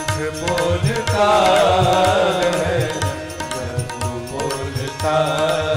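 Hindi devotional bhajan music: a long, wavering melodic line, most likely a drawn-out sung note, over a steady tabla rhythm.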